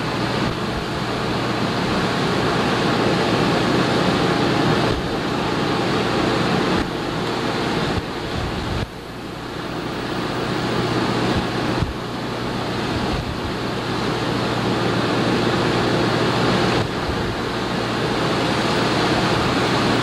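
Boat under way: the rush of the wake and wind buffeting the microphone over a steady low engine hum, with a few sudden drops in loudness.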